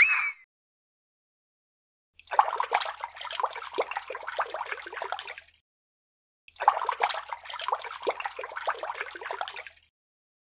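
A short rising whoosh at the very start, then two separate stretches of about three seconds each of a crackly, trickling, water-like sound, with a gap of silence between them.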